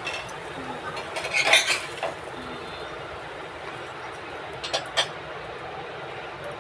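Steel spatula scraping and clinking against a frying pan, once about a second and a half in and again near five seconds, as a moong dal chilla is flipped and lifted out. Underneath, a steady sizzle of the chilla frying in oil.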